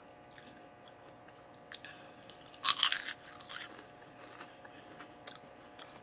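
Crunchy Kkokkalcorn corn snacks being chewed, with faint crunches throughout and a loud crunch about two and a half seconds in, followed by a smaller one about a second later.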